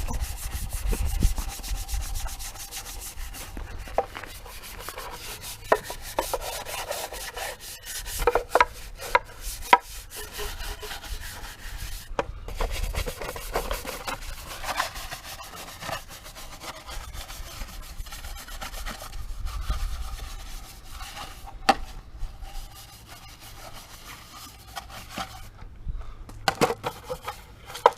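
Fast, continuous scrubbing and rubbing on an oily engine part to clean the grease off, with a few sharp knocks along the way.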